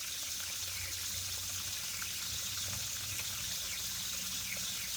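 Water running steadily from an open valve on a well system, with a faint low hum underneath. The water is being drawn off to drop the pressure until the newly replaced pressure switch cuts the pump in.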